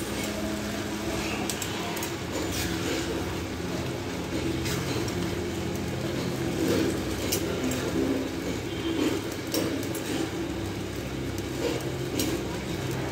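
Plastic spatula stirring a thick pumpkin-and-prawn paste in a kadai, with soft scrapes and a few scattered knocks against the pan, over a steady low hum.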